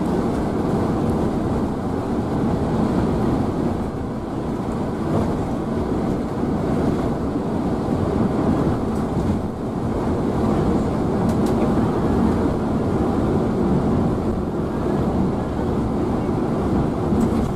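Steady rumble of tyre, wind and engine noise inside the cabin of a Scania K360iB coach cruising at highway speed.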